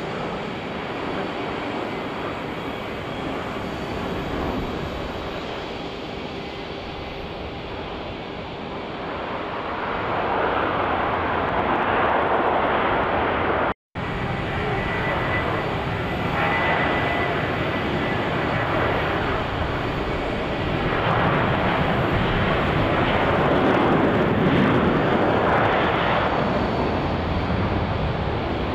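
Jet engines of an Airbus A320 on the runway, their roar swelling about ten seconds in. After a brief cut, an Airbus A321's engines run up with a thin high whine and build to a loud roar as it sets off on its takeoff run.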